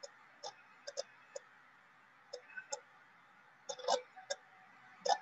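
Irregular light clicks and taps of a stylus pen on a tablet screen during handwriting, with a louder cluster of taps about four seconds in.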